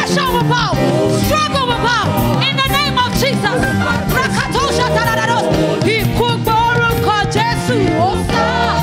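Live gospel praise music: a group of singers with wavering, sustained sung notes over a band with bass and drums.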